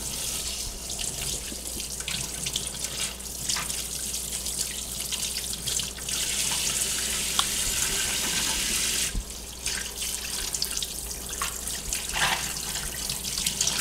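Kitchen faucet running into a stainless steel sink, the stream splashing as a fish fillet is rinsed under it, with a short break in the flow about nine seconds in.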